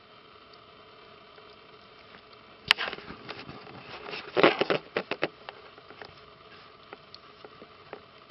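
A sharp click, then about two seconds of rustling and scratchy clicking, loudest in the middle, thinning to a few scattered ticks near the end.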